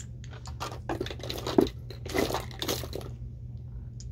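Rummaging among nail polish bottles: a run of rustling and clattering over about two seconds, with one sharp knock about one and a half seconds in.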